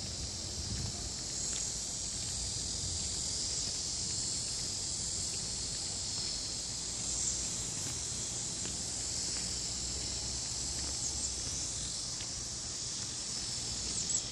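A steady, high-pitched chorus of insects buzzing in the surrounding trees, swelling and easing a little now and then.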